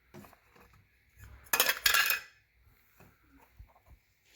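Small lab containers being handled, with scattered light knocks and a short burst of sharp clicking and clattering about one and a half seconds in.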